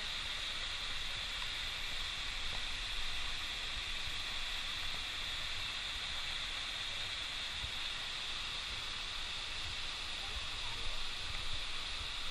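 Small waterfall and stream rushing steadily over rocks.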